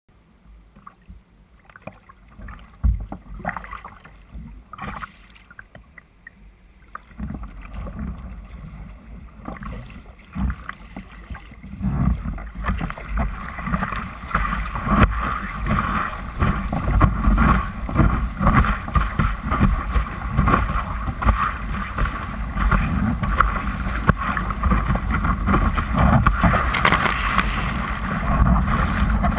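Sea water splashing and rushing against a kayak's hull, with paddle strokes. Separate splashes at first, then, about halfway through, a continuous loud rush of whitewater as the kayak surfs a breaking wave.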